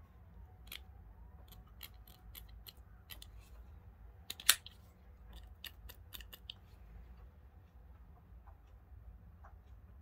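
Benchmade AFO push-button automatic folding knife being handled: a run of light clicks and ticks, with one sharp, much louder snap about four and a half seconds in as the spring-driven blade fires open and locks.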